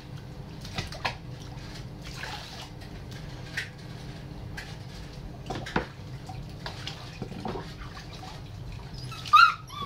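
Small splashes and drips of water in a sink as a wet Vizsla puppy is rinsed by hand, with a brief high-pitched puppy whine near the end.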